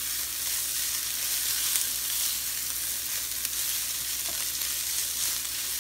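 Shredded chicken and onions sizzling in a nonstick frying pan as they are stirred with a silicone spatula: a steady frying hiss with a few faint ticks.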